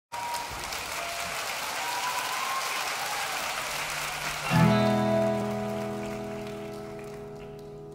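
Audience applause for the first four and a half seconds, then a chord struck on an acoustic guitar that rings on and slowly fades.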